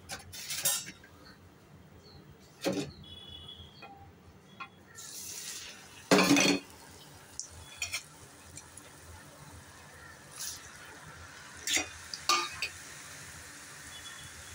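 Murukku dough frying in hot oil in an iron kadai, a steady sizzle that sets in about five seconds in as the dough goes into the oil. Sharp clinks and clatters of metal utensils against pots come several times over it, the loudest about six seconds in.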